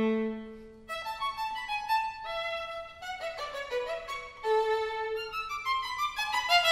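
Classical string quartet music: a low held string note dies away within the first second, then a solo violin plays a line of single notes that climbs in a quick run near the end, where the fuller ensemble comes back in.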